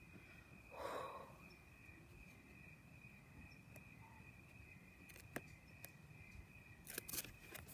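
Near silence with a faint steady high trill of insects, a soft breath about a second in, and a few light clicks near the end as the board book is handled.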